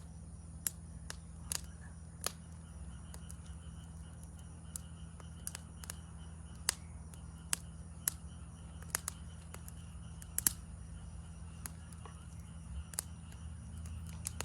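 Wood campfire crackling with irregular sharp pops, over a steady high-pitched trill of forest insects and a second, lower insect chirping that comes and goes.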